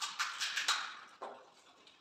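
Crisp pani puri shells being cracked open by hand: a quick run of sharp crackles starting suddenly and fading out after about a second.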